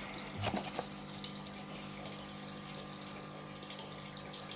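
A steady low hum with a hiss like running water, typical of a pump. There is a brief rustle or knock of the packaging being handled about half a second in.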